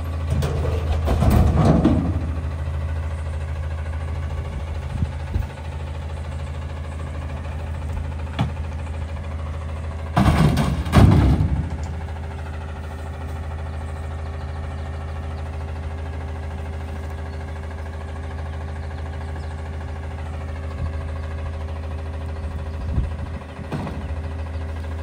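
Autocar WX front-loader garbage truck's engine idling steadily. Bulky household items are thrown into a steel front-load bin, with loud crashes about a second in, a bigger burst of them around ten to twelve seconds in, and a smaller one near the end.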